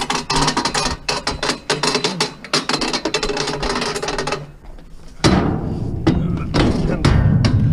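Metal parts of a basketball hoop rattling and clanking as two people carry it, then a sharp knock about five seconds in followed by a low rumble with more knocks.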